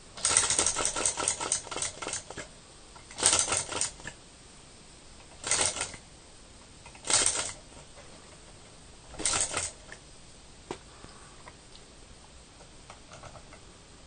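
Gakken vacuum (flame-licker) model engine turned over by hand at its flywheel, five times: each spin gives a burst of rapid mechanical clicking, the first lasting about two seconds and the others about half a second each, dying away each time without the engine running on.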